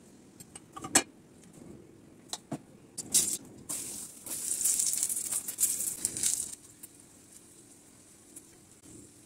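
A few sharp clinks and knocks of cookware, then a paneer paratha sizzling in the hot frying pan for about two seconds.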